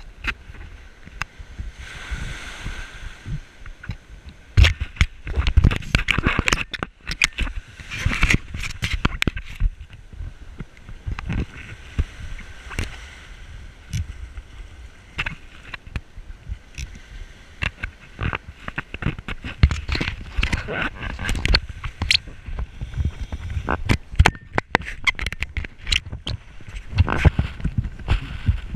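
Shallow surf sloshing and splashing around a diver's legs, with many irregular knocks and scrapes from gear and footsteps as the diver wades out and walks over wet seaweed and sand.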